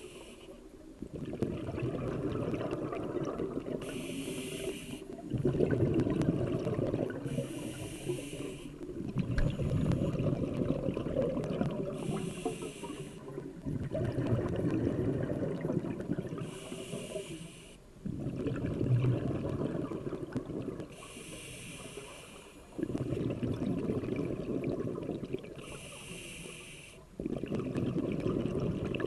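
Scuba diver breathing through a regulator underwater: a short hiss of each inhale through the demand valve, followed by a longer rumble of exhaled bubbles, repeating about every four to five seconds.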